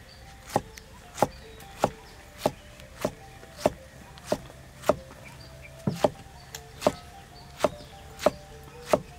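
Steel cleaver chopping pineapple on a thick wooden chopping block: a steady run of sharp knocks, about one every two-thirds of a second, with a short break near the middle.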